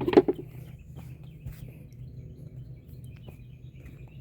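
Birds chirping and twittering in the background over a steady low hum, with one brief, sharp sound right at the start and a few faint clicks.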